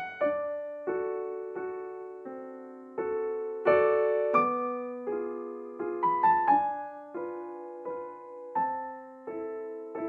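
Calm piano music: notes and chords struck about one and a half times a second, each ringing and fading before the next.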